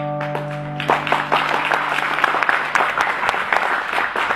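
The closing chord of a steel-string acoustic guitar rings out and fades. About a second in, audience applause breaks out and keeps going.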